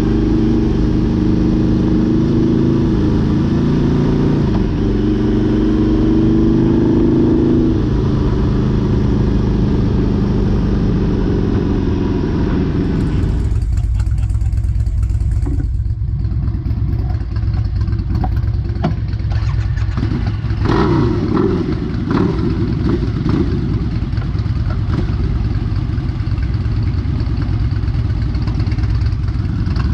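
Harley-Davidson V-Rod motorcycle's V-twin engine running as the bike is ridden, its pitch rising for a few seconds as it speeds up. About halfway through, the higher hiss drops away suddenly, leaving the lower engine sound with scattered clattering.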